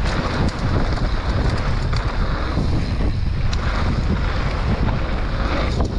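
Wind buffeting a helmet or bike-mounted action camera's microphone and mountain-bike tyres rolling over a dry dirt trail at speed: a steady low rumble with a few short knocks from the bike.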